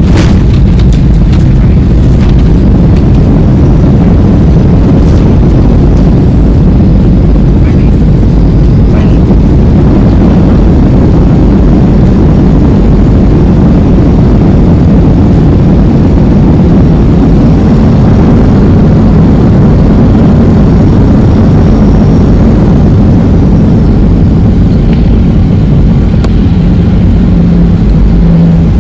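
Loud, steady cabin rumble of an airliner rolling along the runway after touchdown, with engine noise and a low hum that grows stronger near the end.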